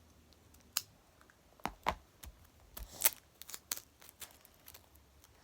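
Scissors cutting paper: a string of short, irregular snips.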